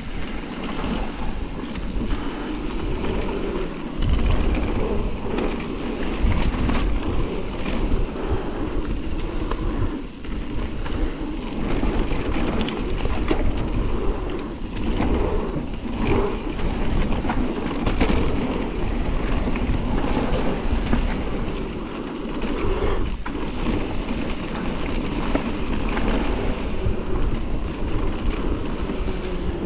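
Wind buffeting the microphone over a steady, heavy rumble of movement, with frequent short knocks and scrapes throughout.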